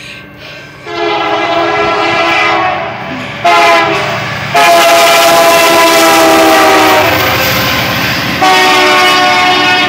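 Union Pacific diesel locomotive's air horn sounding a series of long, loud blasts as the train nears the grade crossing. It starts about a second in and is loudest in the middle, from about four to seven seconds. This is the horn warning given for the crossing.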